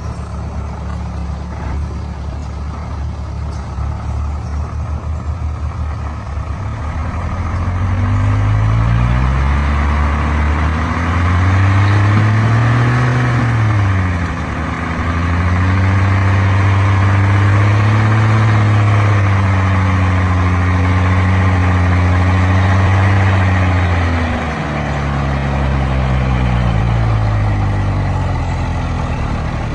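Heavy diesel engine of a logging truck or excavator working in mud, revving up hard several seconds in. It dips briefly, holds high revs for about ten seconds, then drops back to a lower run near the end.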